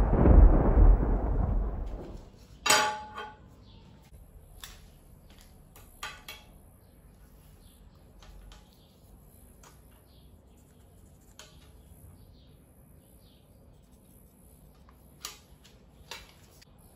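A deep intro boom dies away over the first two seconds. Then comes a scatter of sharp metallic clacks and clicks: a steel bar and a tape measure handled on a steel welding table, the loudest clack about three seconds in.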